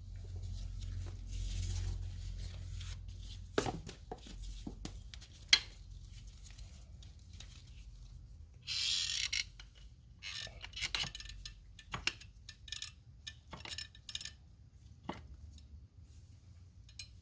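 Scattered clinks, taps and knocks of small objects and tools being handled and set down, with a short rustle about nine seconds in.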